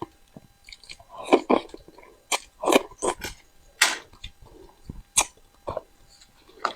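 Close-miked mouth sounds of a person eating fish: irregular wet smacks and sharp clicks of chewing, with a few longer sucking sounds.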